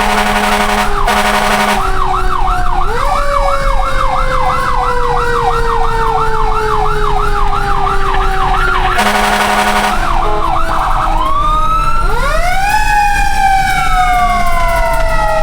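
Fire truck electronic sirens sounding together: a fast yelping warble, long wailing tones that slowly fall, and a wail that rises and falls again about twelve seconds in. Harsh buzzing horn blasts cut in at the start and again about nine seconds in.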